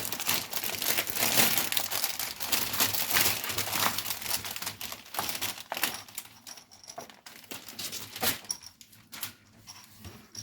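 Packaging crinkling and rustling as it is handled and opened. It is dense for the first six seconds or so, then thins to scattered crackles and clicks.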